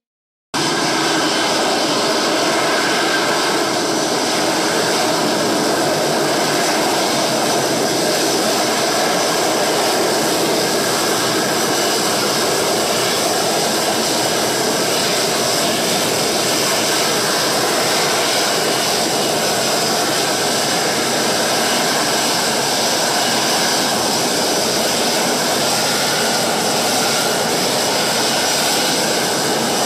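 F-35B Lightning II jet engine running at hover thrust, a loud, steady rushing jet noise that starts abruptly about half a second in and holds even throughout.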